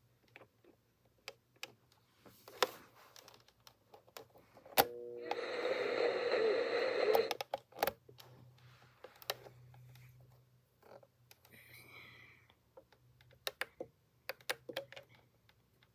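Repeated clicks from the buttons and switches of an Aiwa alarm clock radio being handled and operated, with a burst of radio sound lasting about two and a half seconds, about five seconds in.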